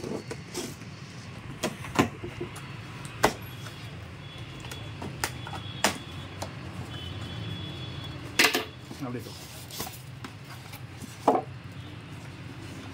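Cardboard TV carton being cut open and pulled apart by hand: scissors snipping the packing tape, then the flaps and box walls bending and tearing with a string of sharp snaps and crackles, over a steady low hum.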